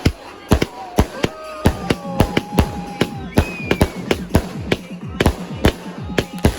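Fireworks going off: a rapid, irregular string of sharp bangs, about three a second, with music underneath.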